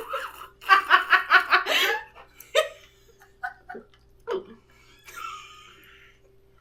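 People laughing: a burst of rapid, evenly spaced laughs about a second in, then a few short chuckles and breaths.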